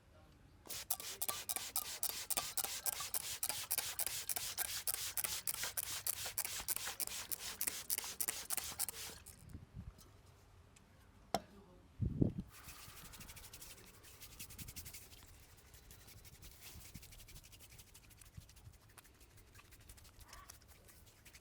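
Hands rubbing briskly through hair and over the scalp in a head massage, about five quick strokes a second for some eight seconds. Then a sharp click and a low thump, followed by softer, slower rubbing.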